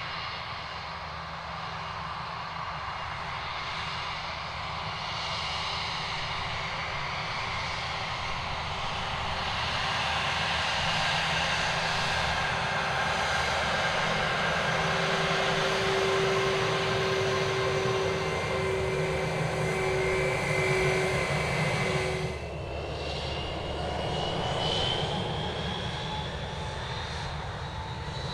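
A jetBlue jet airliner's engines running with a steady roar and several high whines, growing louder over the first half. About 22 seconds in, the sound changes abruptly to another stretch of jet noise with a whine that rises steadily in pitch.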